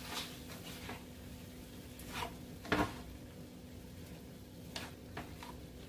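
A cooking utensil clicking and scraping against the cookware while stirring sautéing vegetables: a few scattered light clicks, the loudest a single knock just under three seconds in, over a low steady hum.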